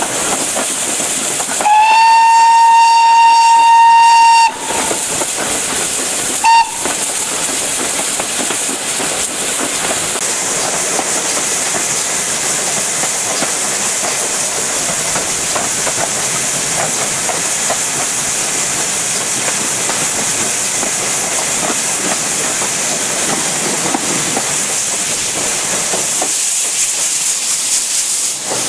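GWR King class 4-6-0 No. 6023 King Edward II's steam whistle blowing one long steady blast of about three seconds, then a short toot about two seconds later. Under it runs the steady hiss, wind and rail clatter of the locomotive working with its train on the move.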